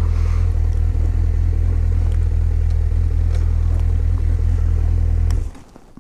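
Motorcycle engine idling steadily at a standstill, then switched off about five and a half seconds in, cutting out abruptly.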